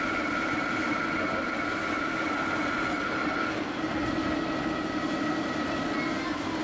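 Steady electric drive and gear whine of a 1:14 scale RC truck moving slowly, over a low hum. The high whine shifts to a slightly different, weaker tone about three and a half seconds in.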